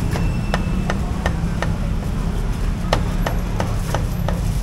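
Cleaver chopping cooked duck on a round wooden chopping block: two runs of five quick chops, about three a second, with a pause of just over a second between them. A steady low rumble runs underneath.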